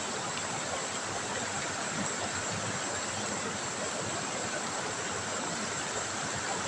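River water trickling and rushing over stones, a steady even flow.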